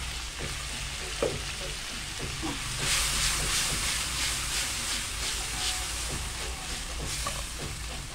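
Chicken pieces, mushrooms and onions frying in a dark sauce in a nonstick pan over a gas flame: a steady sizzle that grows louder and more crackly about three seconds in.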